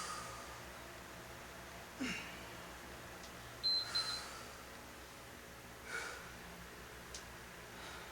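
Hard breathing during exercise: a sharp exhale roughly every two seconds. A short high beep, pulsed two or three times, comes about halfway through and is the loudest sound. A faint low hum runs underneath.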